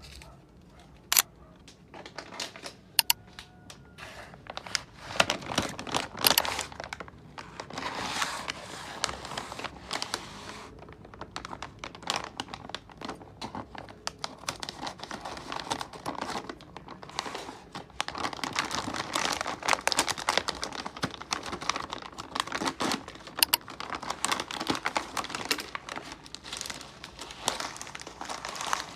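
Packaging crinkling and rustling as items are handled and unwrapped, with a few sharp clicks and taps.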